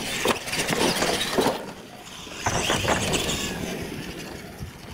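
Radio-controlled monster trucks racing over wooden jump ramps on dirt: a noisy clatter of knocks as they hit the ramps and crash down. It cuts off sharply about a second and a half in and is followed by a quieter stretch of similar noise.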